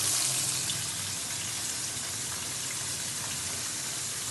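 Flour-battered boneless fish fillet deep-frying in a pan of hot oil: a steady sizzle.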